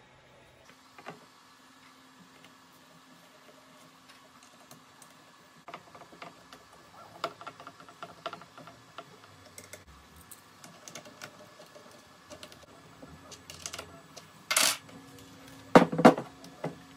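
Small clicks and taps of metal drum hardware being handled and fitted onto a snare drum shell. They are sparse at first and come more often from about six seconds in, with two louder knocks near the end.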